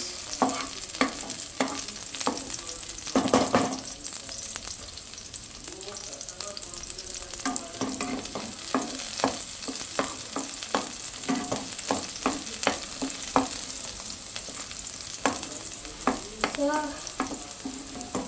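Vegetables stir-frying in hot oil in a pan, with a steady sizzle. A spatula stirs them and clicks and knocks against the pan many times throughout.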